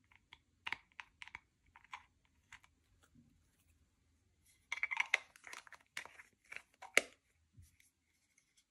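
Slime being pressed and pulled apart by hand, giving sticky crackles and pops. First come a few scattered clicks, then about five seconds in a denser run of crackling that ends with one sharp pop.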